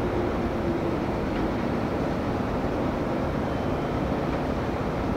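Meitetsu electric train running at the platform with a steady rumble.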